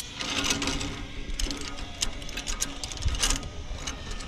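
Irregular mechanical clicking and rattling, a run of sharp clicks that is loudest about three seconds in.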